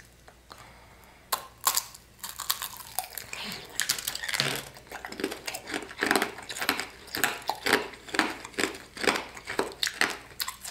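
Hard, glassy sugar shell of a tanghulu-candied mandarin skewer cracking and crunching as it is bitten and chewed. Irregular crisp crunches start about a second in and keep going.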